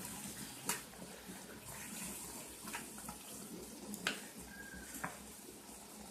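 Half-cooked chicken sizzling in oil in a pan, a steady hiss, with four sharp clicks spread through it.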